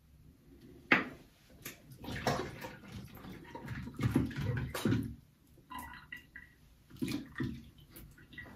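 Water splashing in a bathroom sink in several irregular bursts, with a sharp knock about a second in.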